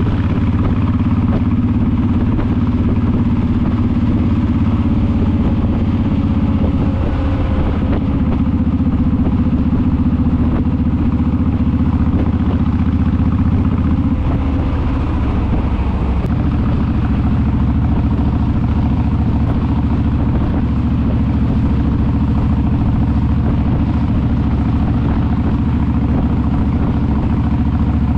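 Honda VTX V-twin cruiser engine running steadily at cruising speed, heard from the rider's seat, with road and wind noise.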